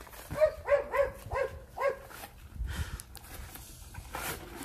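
A dog whining in a quick run of about five short, rising-and-falling yelps, then going quiet, with a short scuffing noise near the end.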